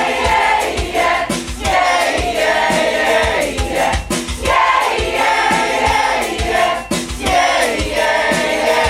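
A choir singing a pop song in several voices over music with a steady beat.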